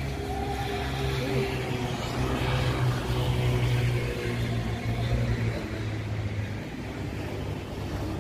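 Road traffic: vehicle engines running as a steady low hum, swelling a little in the first few seconds.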